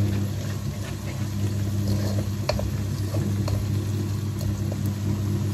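Onions and cumin frying in a wok, stirred with a wooden spatula that scrapes and taps against the pan a few times, over a steady low hum.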